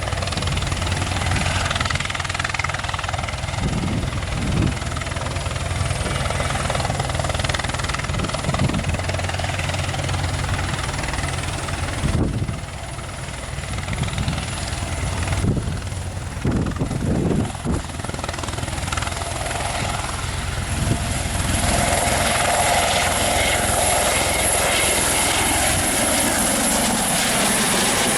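Eurocopter EC130 helicopter in a hover taxi: its single turboshaft engine gives a steady high whine over the main rotor and fenestron tail-rotor noise, growing a little louder and fuller about three-quarters of the way through.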